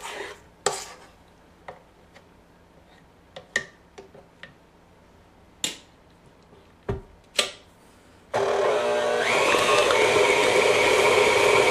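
A few light scrapes and knocks of a spatula against a stainless steel mixing bowl. Then, about eight seconds in, a KitchenAid tilt-head stand mixer switches on and runs steadily, its motor whine rising as it comes up to speed and then holding, as it beats choux pastry dough.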